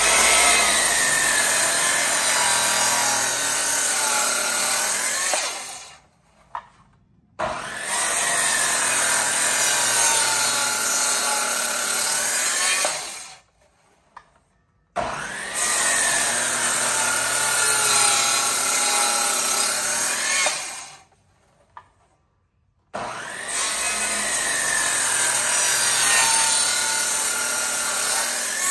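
Makita 10-1/4-inch circular saw making four kerf cuts into a large timber, each lasting about six seconds with a short pause between them. The motor's whine sags in pitch as the blade bites into the wood, then recovers before the saw stops. The cuts are a row of closely spaced kerfs that rough out the waste on the tenon.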